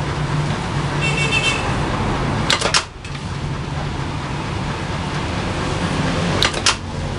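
Strap and fabric chopping machine running with a steady motor hum, its blade striking twice about four seconds apart, each cut a quick clatter of two or three sharp snaps. A short high whine sounds about a second in.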